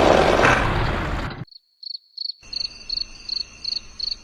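Noisy sound that cuts off abruptly about a second and a half in, followed by a cricket-like high chirping, evenly pulsed at about three chirps a second over a faint steady high tone.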